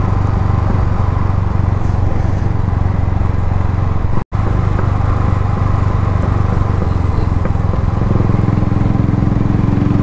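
Royal Enfield Thunderbird 350X's single-cylinder engine running steadily at cruising speed, with wind rush over the microphone. The sound cuts out for an instant about four seconds in, and a higher steady hum joins about eight seconds in.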